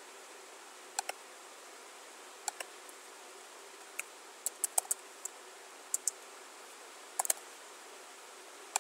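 A dozen or so sharp clicks from a computer keyboard and mouse, irregularly spaced, some in quick pairs and a short run near the middle, over a faint steady hum.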